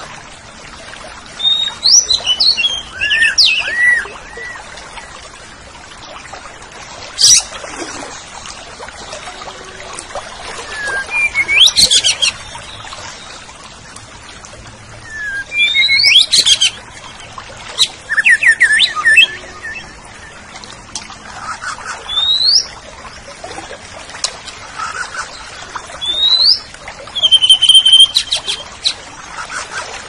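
Orange-headed thrush (anis merah) singing: a string of short, loud whistled phrases made of quick rising and falling glides and trills, with short pauses between them, over a faint steady hiss.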